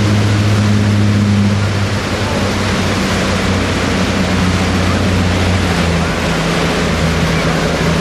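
Motorboat engine running steadily under the loud rush of water spray and wind. The engine note drops slightly about two seconds in.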